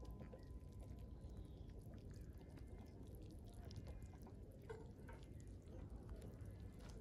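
Near silence: a faint low background rumble with a few soft ticks.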